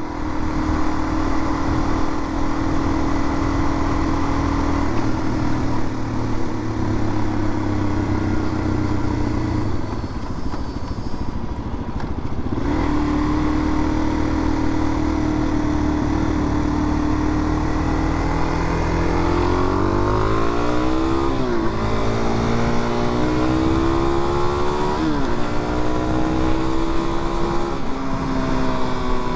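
Suzuki DR-Z400 single-cylinder engine at a steady cruise under wind noise. It eases off briefly about a third of the way in, then accelerates: the engine pitch climbs and drops sharply at each of three upshifts in the second half.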